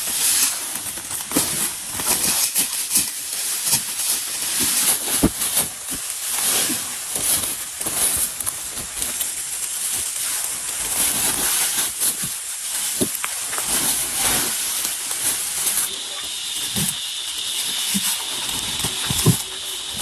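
Steady hiss of rain and wind, with scattered knocks and taps throughout. A thin, steady high tone joins about three-quarters of the way through.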